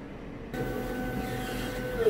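Stepper motors of a 130 W laser engraver whining steadily as the laser head travels over the bed, starting suddenly about half a second in.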